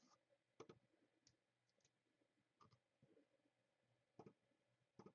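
Near silence broken by about seven faint, irregular clicks from someone working a computer.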